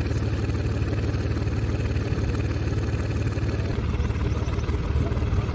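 Tractor diesel engine running steadily, with a low, even pulsing.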